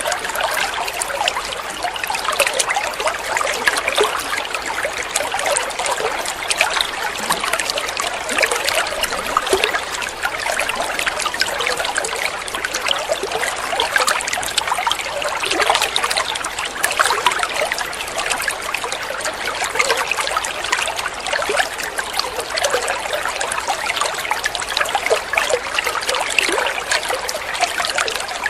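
Running water trickling steadily: an even rush made of many small splashes and gurgles, with no change in level or character.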